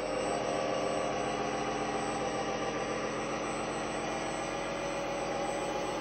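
Radio-controlled model truck driving on its test run, its newly installed multifunction sound unit playing a steady simulated truck engine through a small onboard speaker, with a thin high whine over it.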